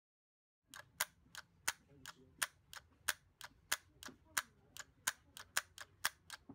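Sharp plastic clicks, about three a second, from the spring-loaded lock bar and release button of a timer-lock cigarette case being worked by hand.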